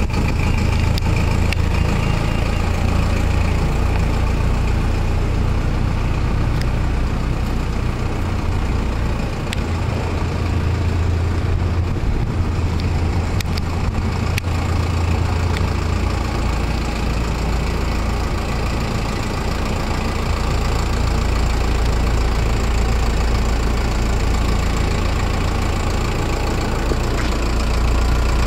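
An engine idling steadily, with a constant low hum.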